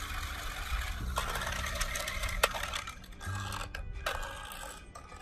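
New Bright Tumble Bee RC stunt vehicle's electric drive motors running in short bursts with a low hum, with sharp clicks and scraping as its wheels clatter and flip on concrete.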